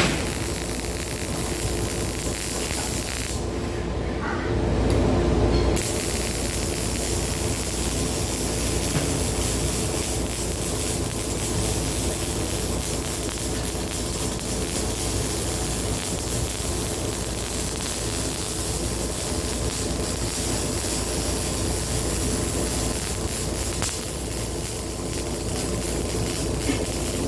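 Steady rushing noise with a low hum underneath, swelling briefly about four seconds in.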